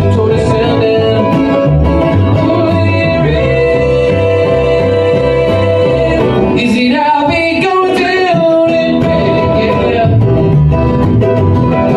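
Bluegrass band playing live: fiddle, banjo, upright bass, acoustic guitar and mandolin over a steady plucked bass line. A long held note about three seconds in gives way to a bending, wavering melody line, with singing.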